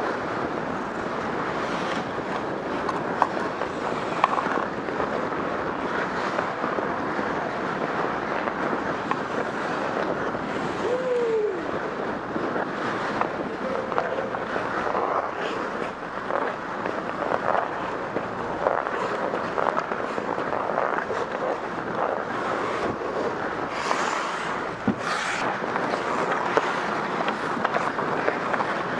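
Steady rushing noise of skating on an ice hockey rink, heard through a skater's helmet-mounted camera with air noise on the microphone, and scattered sharp clacks of sticks and pucks throughout.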